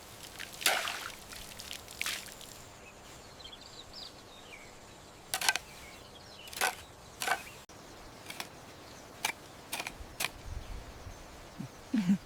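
A series of sharp clicks and snaps at irregular intervals, about a dozen in all, over a quiet outdoor background.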